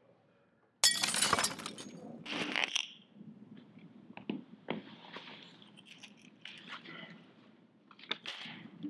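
Glass breaking: a sudden loud crash about a second in, a second crash soon after, then scattered smaller clinks and knocks.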